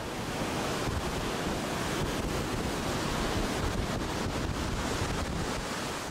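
Ocean waves washing, a steady rushing noise that starts to fade right at the end.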